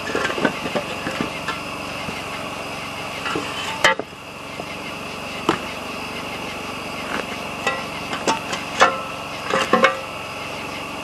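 Metal shovel scraping and knocking against rocks and burning wood as hot coals are dug out of a wood campfire: irregular clinks, scrapes and sharp knocks, one of the sharpest about four seconds in, over a steady background hiss.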